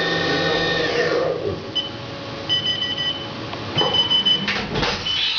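HAAS CNC machine running with a steady whine that winds down about a second in. Three electronic beeps follow, the last two held about two-thirds of a second each, then a short clatter near the end.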